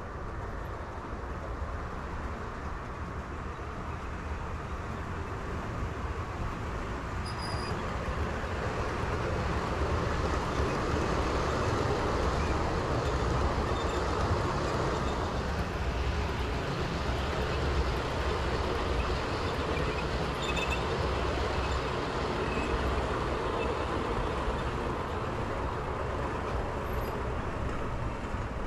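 A train running past, a steady rumble that grows to its loudest about halfway through and then slowly fades, with a few faint clicks.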